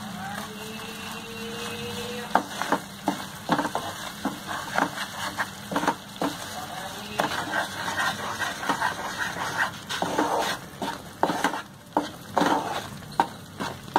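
Wooden spatula stirring and scraping bubbling jaggery and ghee in a non-stick pan, in frequent irregular strokes over a frying sizzle. The jaggery is being cooked down into syrup.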